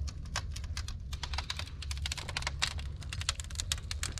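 Wood fire crackling and popping inside a converted propane-tank smoker: a fast, irregular run of sharp snaps over a steady low rumble. The fire is a burn-out of the tank, lit to burn off the paint and the propane's mercaptan smell.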